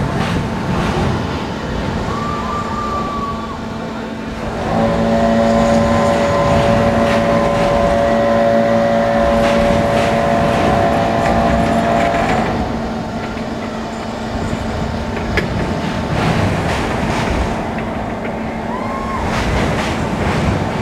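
Steel roller coaster train running along its track: a steady rumble with a humming tone that swells about five seconds in and fades away after about twelve seconds.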